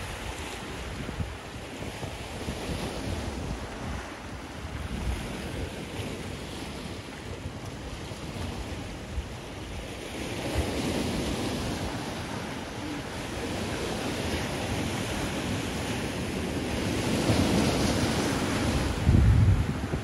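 Sea waves washing in close by, with wind buffeting the microphone. The wash swells about halfway through and again near the end, where a gust rumbles low on the microphone.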